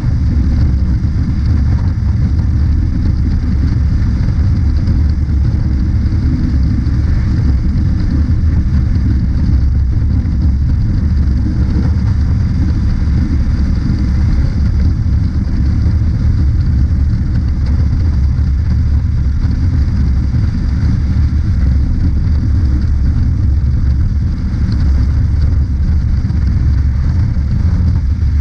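Honda CB500X parallel-twin motorcycle cruising at a steady highway speed of about 80–90 km/h, heard from the handlebars as a loud, steady low rumble of engine and wind.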